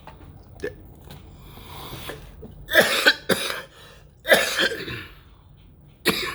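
A person coughing in three bouts, the first about two and a half seconds in and the last near the end.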